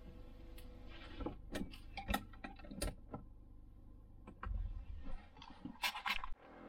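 A scatter of sharp clicks, knocks and rustles from someone handling things in a parked car's cabin, with a brief low rumble a little past the middle.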